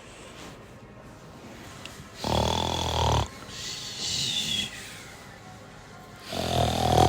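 A person snoring: two loud snores about four seconds apart, the first followed by a breathy out-breath with a faint whistle.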